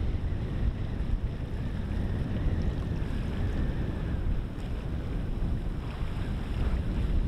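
Wind rumbling on the microphone over the steady rush of river water, with a fish wheel turning in the current and water pouring off its baskets.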